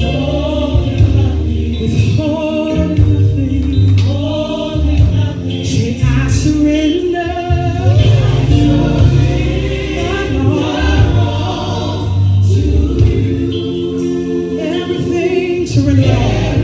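Gospel choir singing, with band accompaniment: a strong low bass line changing notes under the voices and repeated crisp hits on top.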